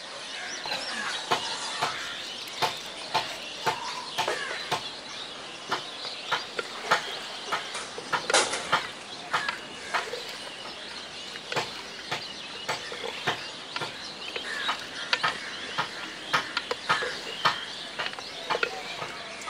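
Wooden stick knocking and scraping against an aluminium cooking pot while cooked jackfruit and potatoes are stirred and mashed, in sharp, irregular knocks about one or two a second.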